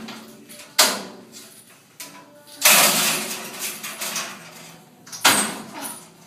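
Ceiling material being torn down: four sudden crashes and clatters, the loudest about two and a half seconds in, trailing off over a second and more.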